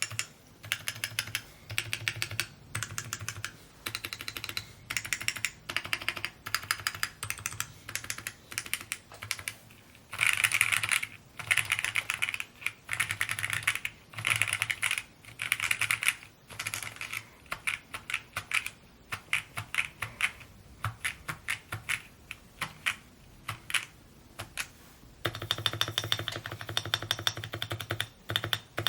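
Typing on a Mode Encore 2 custom mechanical keyboard: rapid keystrokes in word-length bursts with short pauses between them. The keystrokes become a denser, unbroken run near the end.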